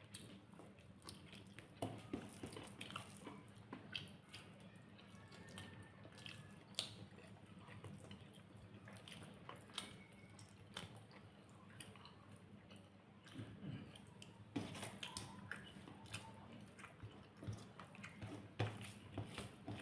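A person eating rice and beef curry: faint chewing with wet mouth sounds and scattered small clicks and ticks at irregular intervals, over a faint steady hum.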